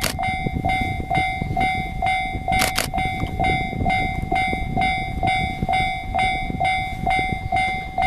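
A railway level-crossing alarm ringing, one bright tone repeated in a quick, even beat, while a diesel railcar approaches with a low rumble underneath. Short clusters of sharp clicks come about two and a half seconds in and again at the end.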